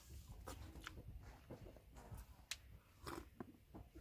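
Quiet chewing of food, with a few faint scattered clicks.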